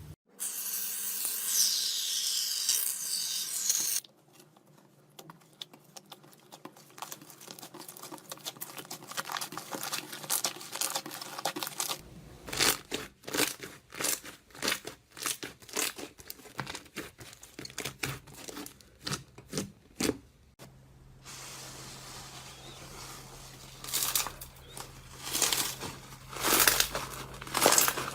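Slime being worked by hand: crinkly, crackling and popping sounds, with clusters of sharp pops in the middle. The sound comes in several separate takes, with a loud hiss at the start and a faint steady hum under the last one.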